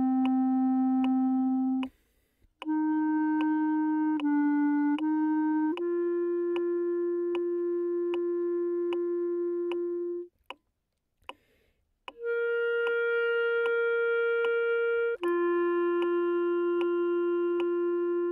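A solo clarinet melody played slowly in long held notes, one note at a time, with two brief rests, the longest note lasting about four seconds; a faint tick runs under it about twice a second.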